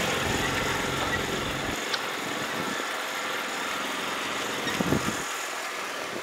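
Engine and exhaust of a locally built mini sports car running as the car drives off, the sound slowly fading as it pulls away, with a brief louder burst about five seconds in.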